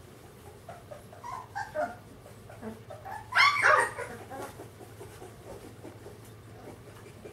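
Three-week-old Bernese mountain dog puppies giving short, high yips and whimpers, then one louder yelp of under a second about halfway through.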